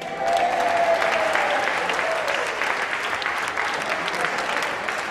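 Audience clapping, starting suddenly in a dense burst and going on steadily.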